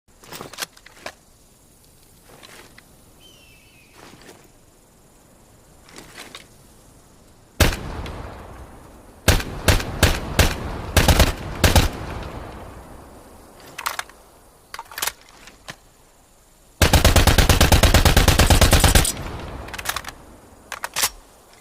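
EM-2 assault rifle sound effect: light clicks, then a single shot with a long echoing tail, followed by a string of single and paired shots. Later comes a full-automatic burst of about two seconds, and near the end a few more short reports.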